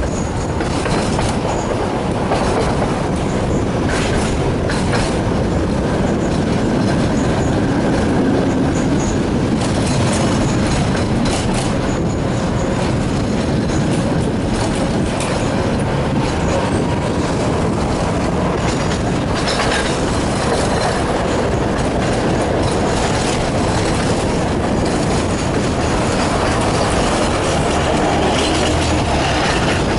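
Tatra tram running along its track: a steady rumble of steel wheels on rail with scattered clicks as they pass over rail joints, and a faint thin tone that comes in for a few seconds around the middle.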